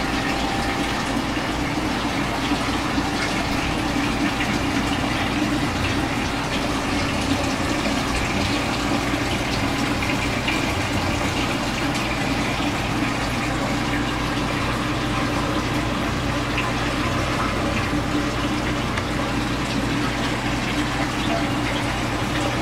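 Saltwater reef aquarium's water circulation running: a steady rush of moving water with a low pump hum underneath.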